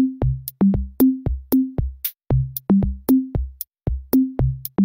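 Electronic background music: a drum-machine beat of short, pitched low drum hits, about four a second, stepping between a few notes, with a ticking cymbal on top.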